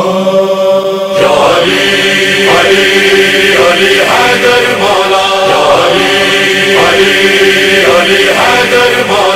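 Noha introduction: a vocal chorus holding a sustained, chant-like hummed drone without words, over a regular beat.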